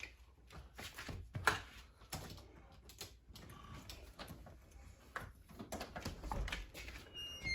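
A string of irregular knocks, bumps and rustles, with a brief high squeak near the end.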